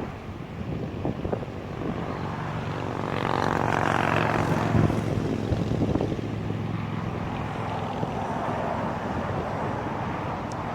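An engine running steadily, growing louder about three to five seconds in and then fading, over wind noise on the microphone.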